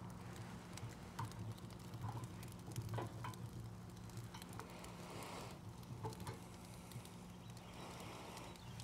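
Faint scattered clicks and light metal taps as the ribs are hung on hooks inside a Pit Barrel Cooker, over a steady low hum.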